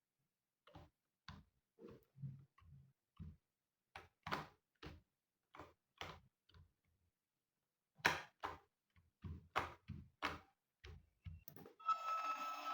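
Key presses on a compact R8 1812 mini keyboard: single short clicks at an uneven pace, some in quick pairs, others a second or more apart. A steady hiss comes in near the end.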